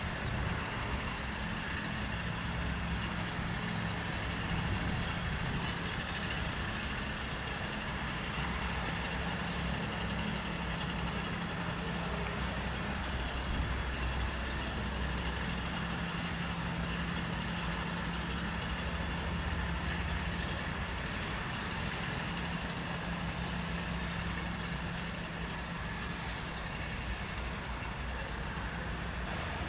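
Airbus A319 jet engines running at idle: a steady high whine over a low hum and rumble, holding an even level throughout.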